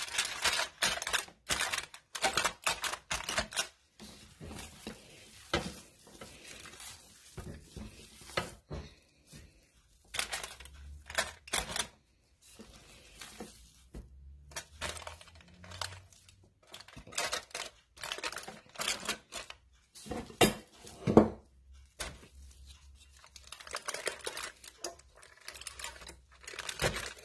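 Gloved hands packing ground-meat mixture into a foil-lined metal loaf pan: irregular crinkling of the aluminium foil and the plastic gloves, with light clattering against the pan and one sharper knock about twenty seconds in.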